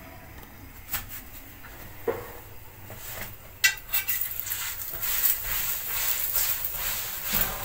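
A few clinks of kitchen utensils against a pan, the loudest about three and a half seconds in. Then from about four seconds a steady sizzle as oil is spread over a chapati frying in a hot flat pan.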